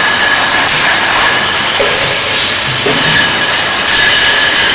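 Automatic shrink-wrapping packaging machine running: a loud, steady hiss with a thin, steady high whine over it.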